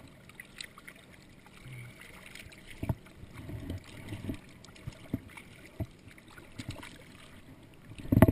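Water lapping and splashing against a paddleboard, with scattered small knocks on the board. A loud thump comes just before the end.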